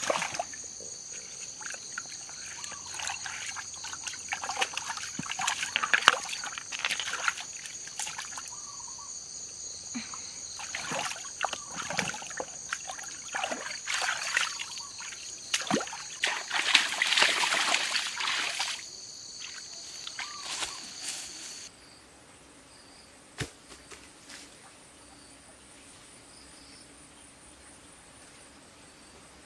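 Water splashing and sloshing irregularly as hands scoop water and shift stones in a shallow stream, with a few knocks, over insects trilling steadily. About two-thirds of the way through the splashing stops abruptly and only fainter insect calls remain.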